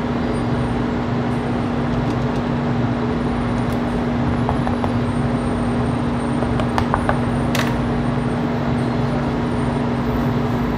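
A steady, loud drone of running machinery with a constant low hum. A few light clicks and a brief hiss come a little past the middle.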